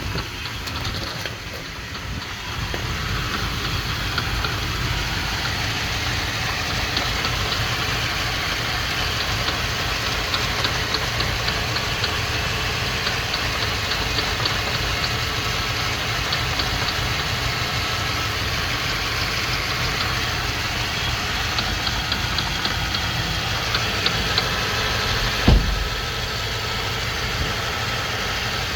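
Ford F-250 pickup running with a persistent mechanical noise that three months of shop visits have not cured, a faint rapid ticking coming and going over a steady hum. A single sharp thump about 25 seconds in.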